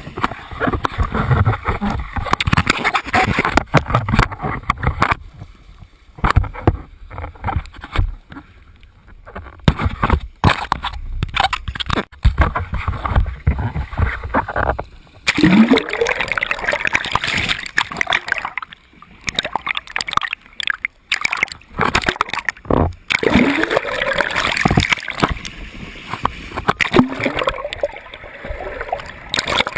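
Whirlpool water gurgling and splashing in uneven surges, with a few quieter gaps.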